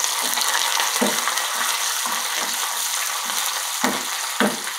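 Curry leaves and fried shallots sizzling in hot coconut oil in a pan, stirred with a wooden spoon, with short sharp scraping sounds through the steady hiss and a few louder ones near the end.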